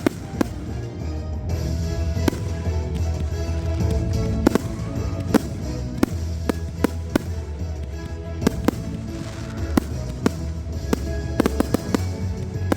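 Fireworks going off in a steady run of sharp bangs and crackles, with a quick cluster of bangs near the end, over music playing throughout.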